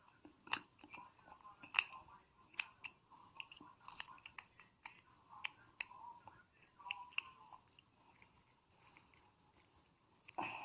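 Faint, irregular small clicks and scrapes of the metal and plastic parts of a household electrical switch being handled while a small nut is worked onto its bar; the nut keeps failing to seat.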